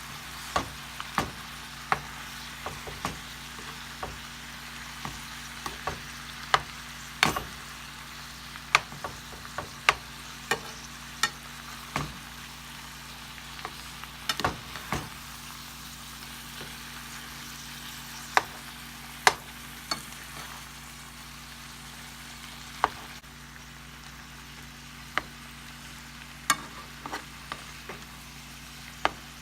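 Chopped roast beef frying in cooking oil in a pan: a steady sizzle broken by frequent sharp pops.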